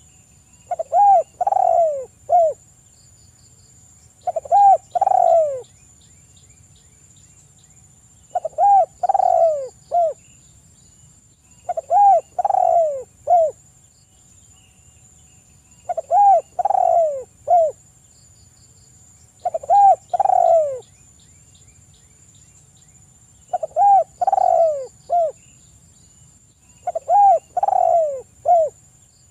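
Spotted dove (tekukur) cooing. Its short phrase of three or four notes repeats about every three and a half to four seconds, eight times in all.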